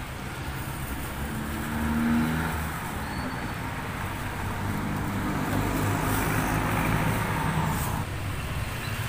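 Road traffic passing: a low vehicle engine hum with tyre noise, swelling about two seconds in and again for a few seconds from about the middle.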